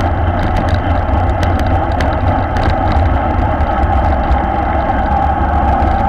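Steady wind noise buffeting a bike-mounted action camera's microphone while riding in a road-race bunch at about 45–50 km/h, a deep rumble mixed with tyre and road noise, with scattered faint clicks and rattles.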